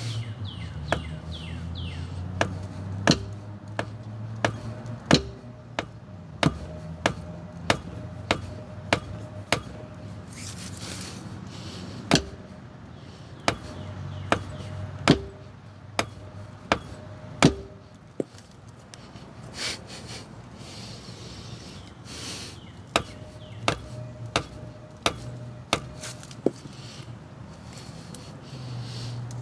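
A 10-pound sledgehammer striking the handle of a tire plug insertion tool, driving the plug into the tire. The blows come in runs of about two a second, some with a short ring, and there are two brief pauses.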